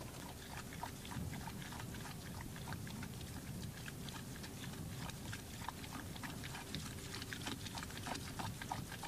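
A mare being hand-milked: short, sharp squirts of milk into a pail, a couple to a few a second, over a low rumbling animal noise.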